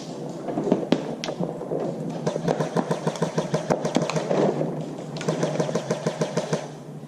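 Airsoft gun firing on full auto: two long bursts of rapid, evenly spaced clicking, the second starting about five seconds in, after a few single shots at the start.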